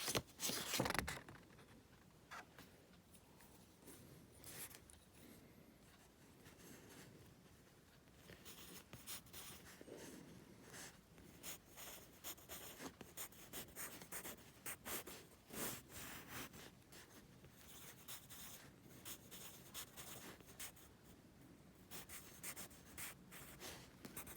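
Faint scratching of a pen drawing lines of a wiring diagram, in many short, irregular strokes that come more often in the second half.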